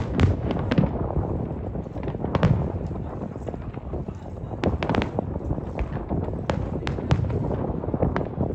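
Fireworks display going off: a continuous rumble of booms with many sharp cracks and bangs scattered through it.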